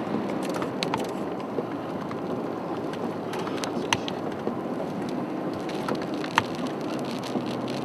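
Rain striking a moving car's windshield and roof: a steady rushing hiss dotted with irregular sharp ticks of drops.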